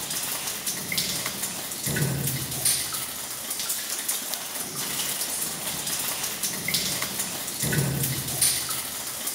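Cave water dripping and trickling: a steady patter with scattered sharper drips.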